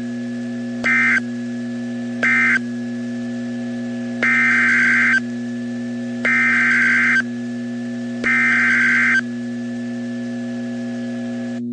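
Emergency Alert System (SAME) digital data bursts on a NOAA Weather Radio broadcast, over a steady hum of tones. First come two short bursts about 1.4 s apart, which close the end-of-message code of the warning just read. Then three longer bursts about two seconds apart give the header of the next severe thunderstorm warning.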